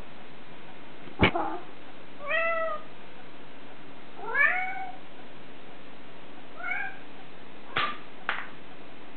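House cat meowing three times, short calls with the middle one the longest and loudest. A sharp click sounds about a second in, and two more near the end.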